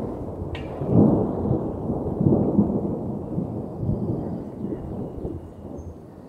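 Wind buffeting a phone microphone on an open chairlift ride: low rumbling gusts that swell and fade every second or so, easing off near the end.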